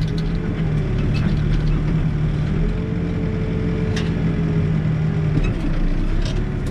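New Holland backhoe's diesel engine running steadily while the backhoe works. A higher steady tone joins in for a couple of seconds near the middle, and there is a single sharp knock about four seconds in.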